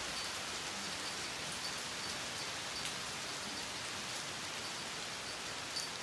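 Steady rain, an even hiss, with scattered short high-pitched ticks.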